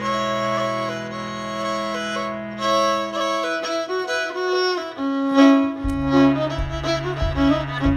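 Background music with a bowed fiddle melody; about six seconds in, a low bass note and a steady beat join.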